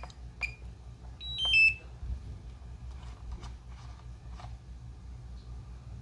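Electronic beeps from the DJI Mini 2: a single short beep, then about a second in a quick falling chime of three notes, the loudest sound here. Light clicks and taps of handling follow over a low steady hum.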